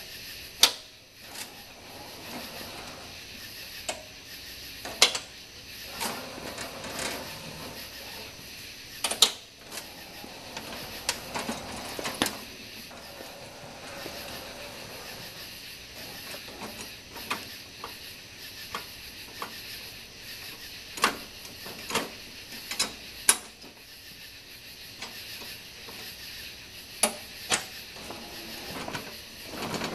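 Homemade electric lawn tractor pushing loose dirt with a front blade, giving sharp clicks and clanks at uneven intervals over a low steady background. A dozen or so knocks are louder than the rest.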